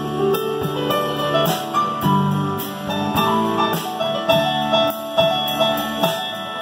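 Live rock band playing an instrumental passage: electric keyboard with a piano sound over strummed acoustic guitar, bass and a drum kit, cymbals keeping a steady beat of about two strokes a second.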